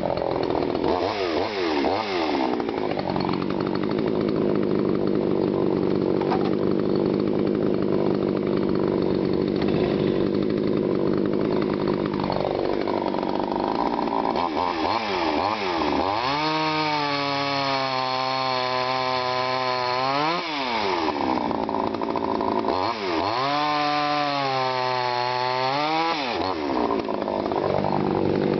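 TimberPro CS-6150 62 cc two-stroke chainsaw cutting dense honey locust, the engine running steadily under load. Twice in the second half the revs climb high for a few seconds and then drop sharply back.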